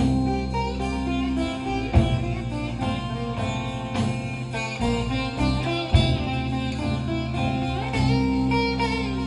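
Live band playing an instrumental passage of a Sufi song: guitar over sustained bass notes, with a strong accented hit about every two seconds.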